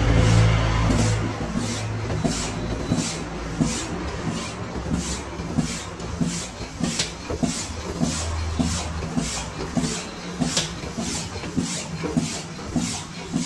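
Pneumatic power-steering rig working: a steady run of short clicks with air hiss, about two a second, with a low hum at the start and again about eight seconds in.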